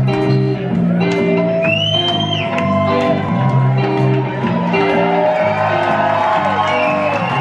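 A live rockabilly band plays, with a steady stepping bass line, drums and electric guitar. Whoops and shouts from the audience glide over the music.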